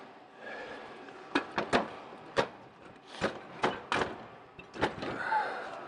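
Heavy metal parts clanking and knocking, about eight sharp knocks spread over a few seconds, as the old turbocharger is worked loose from the catalytic converter.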